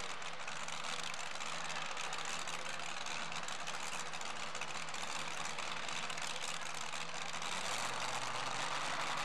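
Supercharged engine of a two-wheel-drive pulling truck running steadily at idle.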